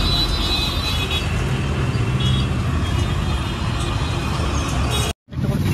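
Steady roadside traffic noise of running vehicles, with a short high toot a little over two seconds in. The sound drops out abruptly near the end.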